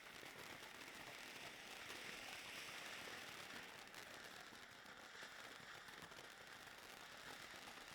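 Argento Feuerwerk Bengalino Gold-Silber bengal light burning with a faint, steady hissing fizz, as simulated fireworks audio.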